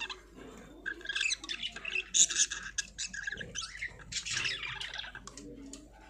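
A breeding pair of budgerigars chattering, with rapid warbles and harsh squawks. The calls start about a second in, are loudest around two and a half seconds in, and tail off near the end.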